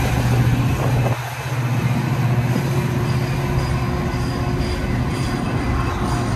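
Metra commuter train's bilevel passenger cars passing close by at speed: a steady rumble of steel wheels on the rails with a strong low hum, dipping briefly about a second in.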